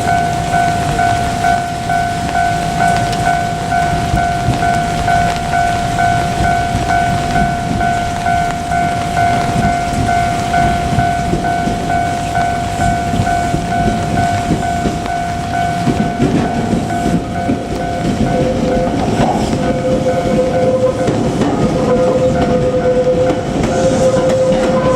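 Japanese level crossing warning bell ringing, a fixed-pitch electronic ding repeating rapidly and evenly. From about two-thirds of the way in, a JR Kyushu 817 series electric train's running noise rises as it approaches, with a low rumble and a steady hum that grow louder toward the end.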